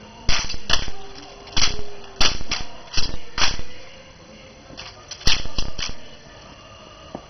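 Sharp, ringing clacks of M1 Garand rifles being slapped, caught and snapped into position in unison during an honor guard's rifle drill. About a dozen clacks come in three quick clusters.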